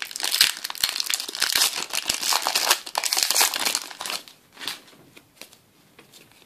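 Foil wrapper of a trading-card booster pack torn open and crinkled by hand, loud and crackly for about four seconds, then quieter rustling as the cards are drawn out.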